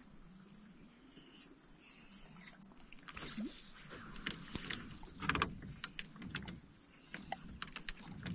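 Fly line being stripped and cast from an aluminium canoe: scattered clicks and soft knocks of line and reel handling, with a louder knock against the canoe about five seconds in.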